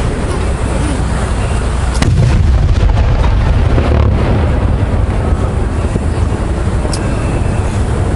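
Aerial firework shells bursting in a steady low rumble of booms, with a sharper crack about two seconds in followed by a heavier stretch of booming.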